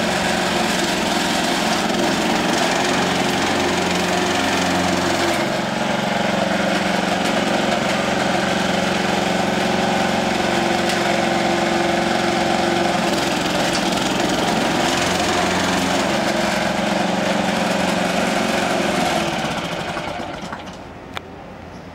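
A small engine running steadily, then winding down and stopping about three seconds before the end, followed by a single click.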